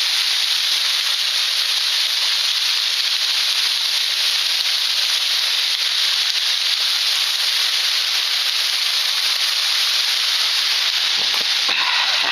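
Waterfall pouring right overhead: a steady, loud rush of falling water.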